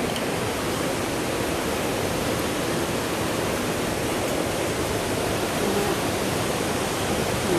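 Steady, even rush of water from a waterfall and its cascading river.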